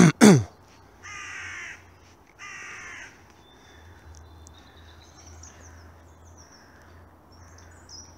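Two harsh caws from a crow-family bird, which the walker takes for a rook, about a second in and again a second and a half later. Faint high twittering of small birds follows.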